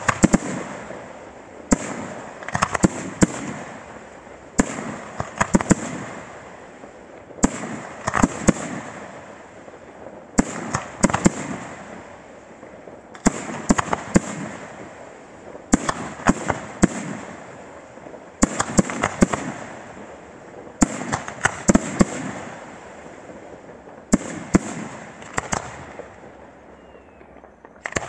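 Aerial firework shells bursting in a display: sharp bangs come in clusters every two to three seconds over a steady hiss. The bangs die down briefly near the end before a fresh volley.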